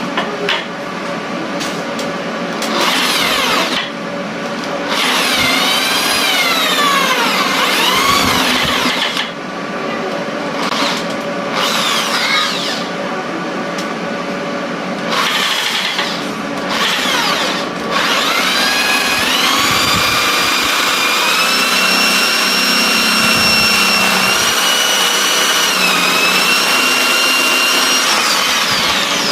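Electric drill running a jigsaw adapter, its motor whining up and down in pitch as the trigger is squeezed and eased, stopping and restarting several times, then running steadily for the last third with small shifts in speed.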